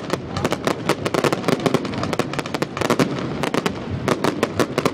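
Fireworks display going off: a dense, rapid barrage of sharp crackling bangs, many a second.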